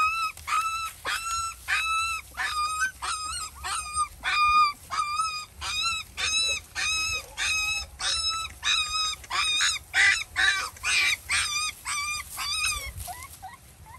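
Puppies crying in a long run of short, high-pitched whines, about two a second, several voices overlapping about ten seconds in before the calls die away near the end: hungry puppies begging for food.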